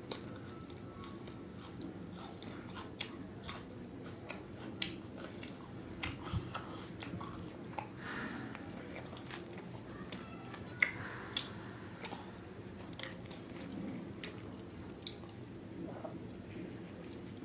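Close-up mouth sounds of eating: crunchy bites of raw onion and chewing, with many small wet clicks and crackles. Soft tearing of butter naan by hand is mixed in.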